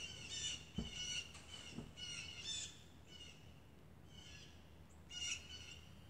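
Birds chirping and calling in short high bursts, with two dull low thumps about a second apart near the start.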